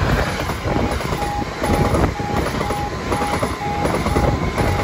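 Class 375 Electrostar electric multiple unit running past close by, a steady rumble and hiss of wheels on rail with faint ticking from the rail joints. A level-crossing warning alarm beeps over it about twice a second.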